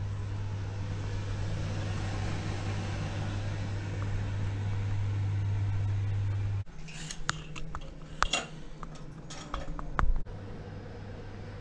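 A steady low hum with a faint hiss stops abruptly a little past halfway. A string of sharp clicks and knocks follows, the loudest near the end, over a fainter steady hum.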